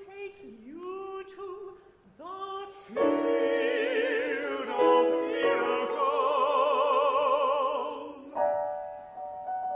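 Operatic singing with piano accompaniment: short sung phrases, then about three seconds in several voices join in a loud sustained passage with wide vibrato, which gives way near the end to a steady held chord.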